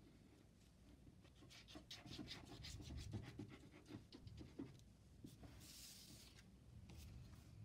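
Faint run of quick light taps as a plastic liquid-glue bottle's nozzle dabs dots of glue onto card, then a brief papery swish as a card is slid across the board.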